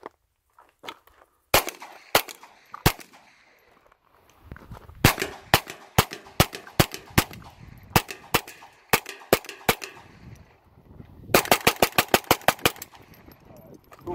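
Intratec Tec 22 semi-automatic .22 LR pistol firing, its extractor and extractor spring upgraded. There are three spaced shots, then a steady string of about a dozen, then a rapid burst of about ten near the end. The pistol cycles round after round without a stoppage, which the shooter calls super reliable.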